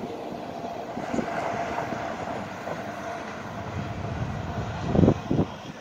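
Fading rumble of a departing double-stack container train mixed with highway traffic noise, with a faint steady whine. About five seconds in, two short gusts of wind buffet the microphone.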